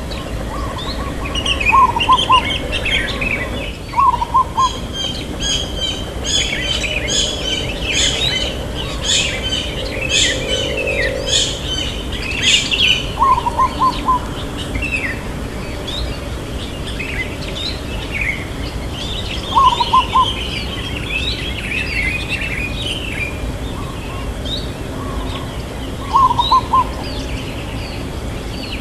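Zebra dove cooing in short, rapid rolling phrases, about five times a few seconds apart, over a chorus of other small birds chirping and twittering.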